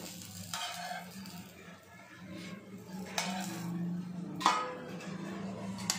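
A flat spatula scraping and tapping on a dosa tawa as a pesarattu is lifted and folded, with a few short strokes and a sharper clink about four and a half seconds in. A steady low hum runs underneath.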